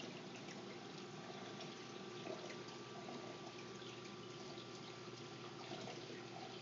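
Steady trickle and splash of water circulating in a saltwater reef aquarium, with a low steady hum underneath.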